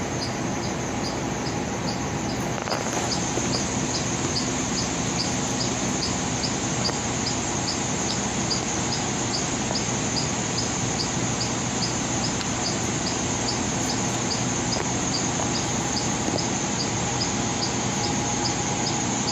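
Steady whirring hum and rush of a fan running, with a short high chirp repeating about twice a second.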